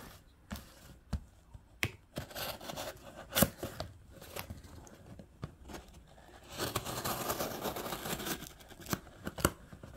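Folding knife blade, a Kizer Mini Paragon, cutting through packing tape on a cardboard box: scattered clicks and scrapes, then a longer stretch of slicing and tearing about two-thirds of the way in.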